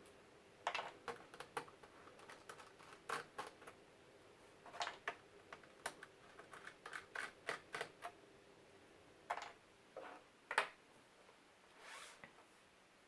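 Irregular faint clicks and ticks, some in quick runs, of a small screwdriver backing out screws and tapping against a laptop's plastic case.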